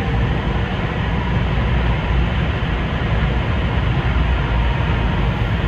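Steady running noise of an E2-series Shinkansen at speed, heard from inside the train's deck: a deep, even drone with a hiss over it.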